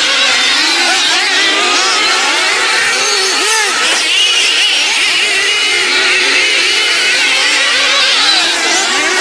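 Several engines revving at once, their pitches rising and falling against each other as racing vehicles accelerate and ease off.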